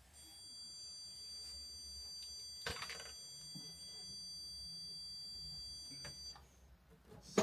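Handheld stud finder held against the wall, sounding a steady high-pitched electronic tone that signals it has found a stud; the tone stops about six seconds in. One light tap on the wall a little before halfway.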